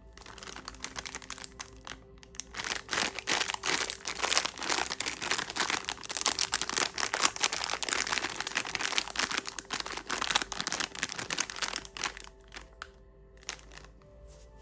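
Plastic lollipop wrapper crinkling and crackling as it is unwrapped: dense, rapid crackles that thin out to a few scattered crinkles near the end.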